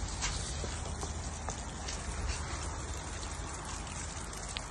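Rain falling steadily, a soft patter with a few separate drop ticks.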